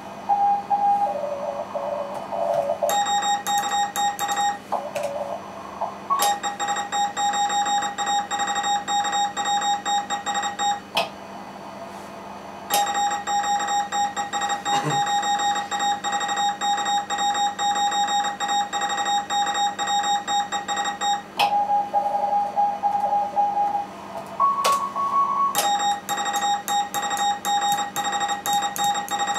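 Morse code (CW) tones in a radio contest exchange. Long runs of fast keyed tone at one steady pitch, the operator's own sending heard as the keyer's sidetone, alternate with shorter Morse replies at other, lower and higher pitches from stations heard through the receiver.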